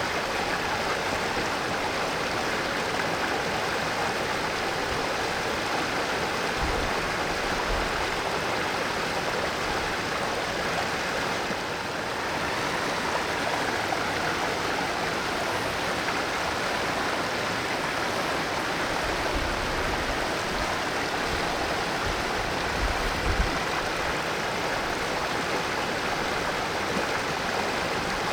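Mountain stream water flowing and splashing over rocks in a steady, even rush. A few brief low thumps sit under it, the clearest about three-quarters of the way in.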